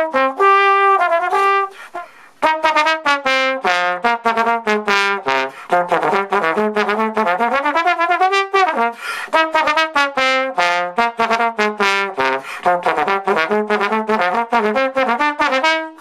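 Slide trombone played solo: a fast run of short, separately tongued notes, with a brief break about two seconds in and a smooth slide up and back down in pitch near the middle.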